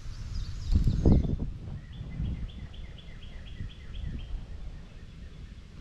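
A bird calling: a short falling phrase, then a run of about ten even, repeated notes, roughly four a second. A couple of dull thumps about a second in are the loudest sounds, over a low rumble of wind or handling noise.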